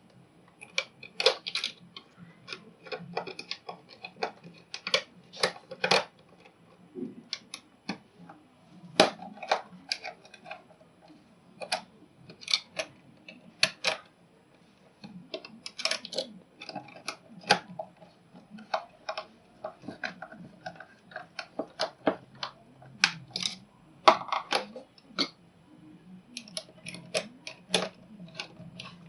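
Handling noise from hands-on electrical work: irregular sharp clicks and light knocks of small tools, screws and wiring parts being worked by hand.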